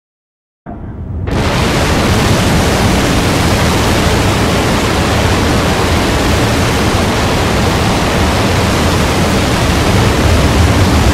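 Loud, steady rushing hiss with no pitch or rhythm, starting suddenly under a second in and filling out to its full level within about a second.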